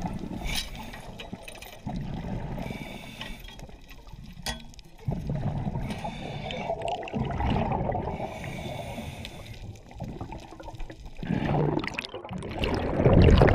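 Muffled underwater sound of a scuba diver's exhaled bubbles gurgling from the regulator in surges every few seconds, the loudest rush near the end.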